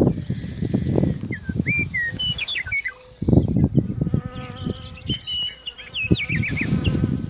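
Songbirds chirping in many short whistled notes, over bouts of low rustling noise.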